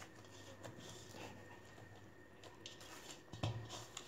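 Oiled ragi dough being kneaded by hand in a stainless steel bowl: faint soft squishing and patting, with one louder low thump near the end.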